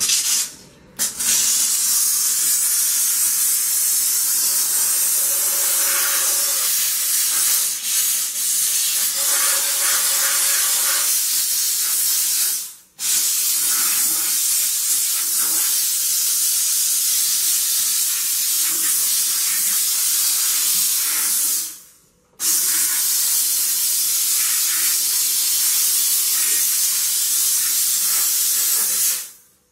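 Sauber Brilliance steam cleaner jetting steam with a loud, steady hiss. It cuts off briefly twice, about 13 and 22 seconds in, and stops near the end.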